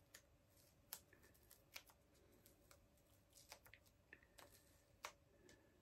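Faint, irregular ticks and rustles of comic books being handled, paper covers sliding and fingers picking at the book's edge.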